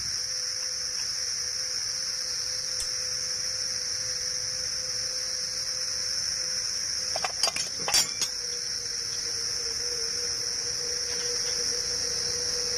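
A short cluster of metallic clinks about seven to eight seconds in, from tools and parts on a motorcycle's opened clutch being handled. Under them runs a steady high-pitched insect drone and a faint steady hum.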